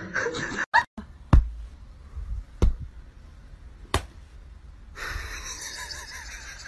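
Three sharp hand slaps about a second and a half apart, as hands are slapped down one on top of another in a hand-stacking game. A steady hiss follows near the end.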